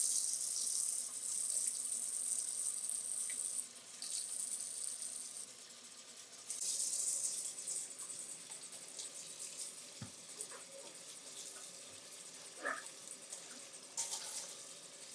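Kitchen tap running water over vegetables being rinsed in a steel sink. The splashing is strongest for the first few seconds, comes back briefly about halfway and again near the end, with a few light knocks in between.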